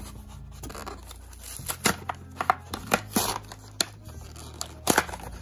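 Stiff plastic blister packaging crackling and snapping as it is pulled off a small doll's cardboard backing. The sharp, irregular cracks come mostly in the second half.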